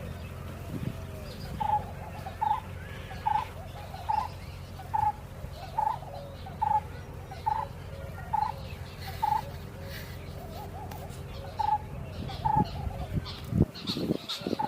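A bird repeating one short call note steadily, a little more than once a second, pausing and then giving a few more. Other birds chirp faintly over a steady low background rumble, and a couple of knocks come near the end.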